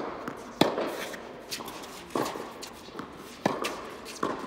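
Tennis ball struck by racquets and bouncing on a hard indoor court during a doubles rally: about six sharp pops, half a second to a second apart, each echoing in the hall.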